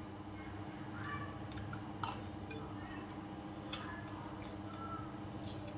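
A few light clicks of a spoon and chopsticks against dishes, the sharpest about two-thirds of the way in, over a steady low hum.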